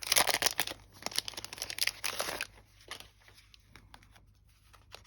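Paper packaging crinkling and rustling as a small box is handled and opened, dense for about two and a half seconds, then fainter scattered crackles.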